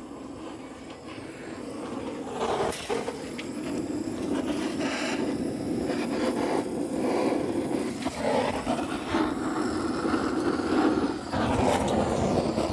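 Handheld butane torch flame hissing steadily, growing louder over the first couple of seconds, as it lights fire lighters under a charcoal chimney to start the charcoal. A few short knocks sound over it.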